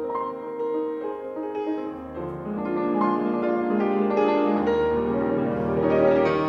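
Background classical music on piano: slow, held chords, with deep bass notes joining about two seconds in and again near the end.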